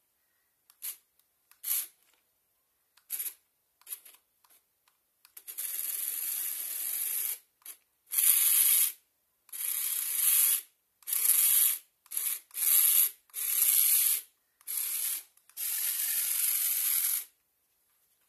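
A few short clicks, then about a dozen bursts of hissing, each from half a second to two seconds long, with short gaps between them.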